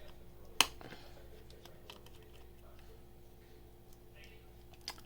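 Small clicks and taps of hand repair tools working on an opened iPhone 7 Plus, with one sharp click about half a second in and another near the end, over a faint steady hum.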